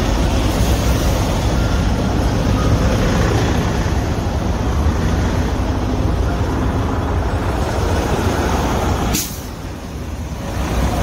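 Steady loud roadside traffic noise, a rush with a low rumble from vehicles on the road. About nine seconds in there is a brief click, and the noise quietens.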